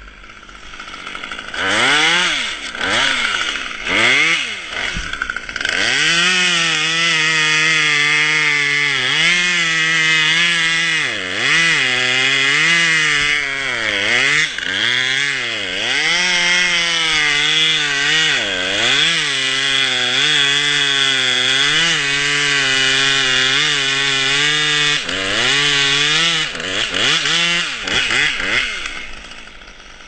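Chainsaw engine revved in a few quick blips, then held at high revs for most of the time, the pitch dipping and recovering again and again, before dropping away near the end.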